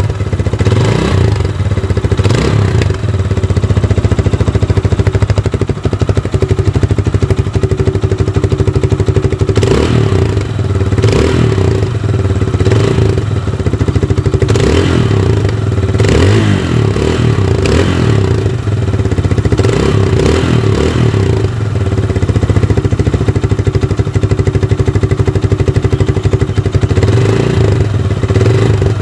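Motorcycle engine running with a plastic oil jug fitted over the muffler outlet, a homemade trick meant to make the exhaust sound like a KTM Duke. A steady idle with repeated short throttle blips, several in a row in the middle stretch.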